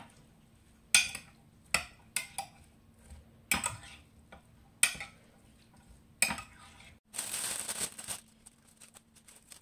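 Metal spoon clinking against a glass dish about seven times while mixing a chopped tomato, cucumber and onion salad. Near the end, a brief rustle of lettuce leaves being handled.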